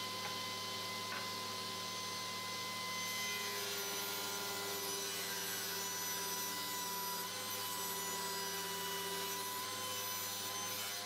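SawStop table saw running steadily while its blade trims the bowed edge of a wooden stair tread fed along a plywood auxiliary fence, edge-jointing it straight. The sound shifts slightly about three and a half seconds in, as an extra tone joins.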